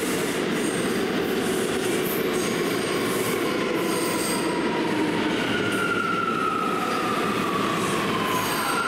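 New York City subway train running through the station with a steady rumble and rush. From about halfway through, a high wheel squeal slides down in pitch.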